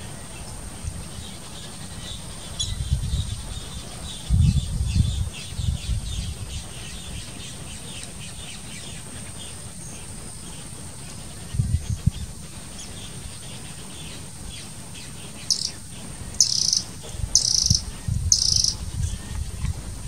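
Birds chirping around a pond over a steady high insect drone, with four short bright calls close together near the end. Low rumbles come and go a few times underneath.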